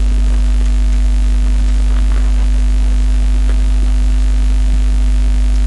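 Steady, loud electrical mains hum with a fainter buzz above it, unchanging throughout.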